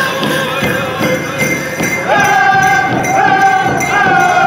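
Powwow drum group singing a chicken dance song: high, held voices that slide down at the ends of phrases, over a steady beat on a big drum, with the jingling of the dancers' bells.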